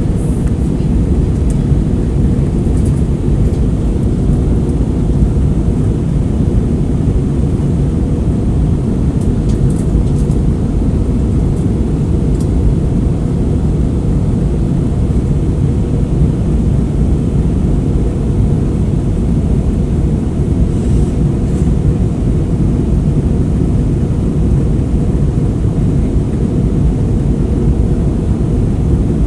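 Steady low rumble of an airliner's engines and airflow heard inside the passenger cabin during the descent to land.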